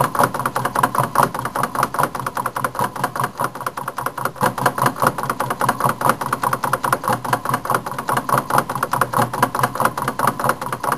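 Homemade Stirling engine, converted from a fan Stirling engine with butter-bucket-lid flywheels, running on stored heat with the alcohol flame out. Its crank and piston clatter in a fast, even run of clicks, several a second.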